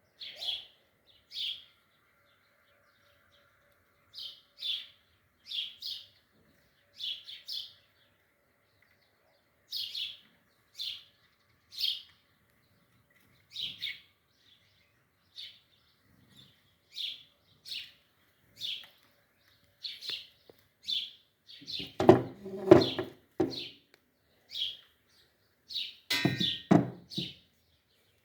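A small bird chirping, one short high note repeated about once a second. Two louder, rougher bursts of sound break in, one about three-quarters of the way through and another near the end.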